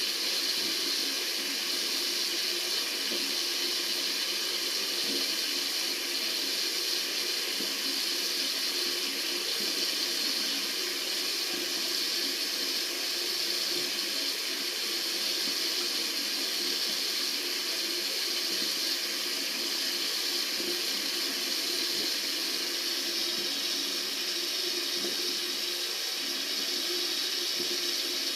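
Tap water running steadily from a faucet into a sink, an even rushing splash that stays constant.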